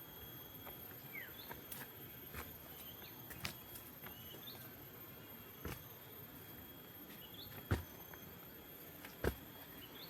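Outdoor nature ambience: insects droning steadily at a high pitch, with short bird chirps now and then. A few sharp taps cut through, the two loudest near the end.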